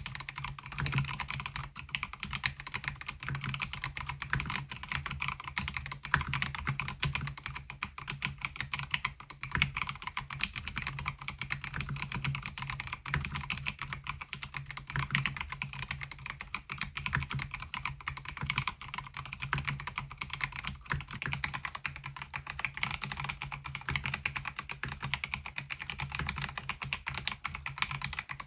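Mechanical keyboard being typed on continuously, a fast, steady stream of key clicks and clacks. The keyboard is a MelGeek Mojo68 fitted with KiiBOOM MOA-profile keycaps.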